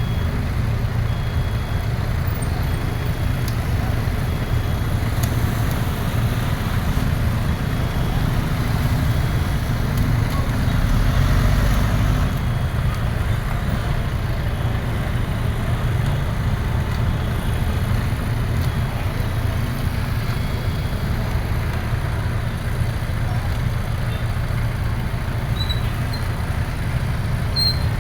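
Excavator's diesel engine running steadily, with a brief rise in level about eleven seconds in.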